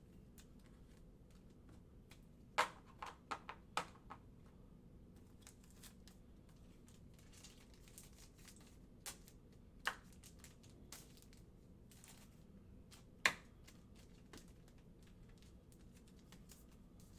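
Trading cards being handled and sorted on a table: scattered soft clicks and taps, with a quick run of sharper taps about three seconds in and single louder taps later.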